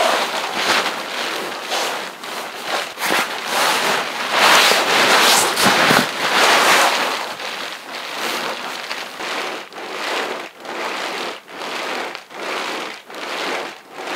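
Older Therm-a-Rest NeoAir XLite inflatable sleeping pad, 30-denier nylon, crinkling sharply like plastic sheeting under a person shifting their weight on it. The rustling comes in uneven bursts at first, then settles to about two crinkles a second. This sharp crinkle is the noise the older XLite is known for.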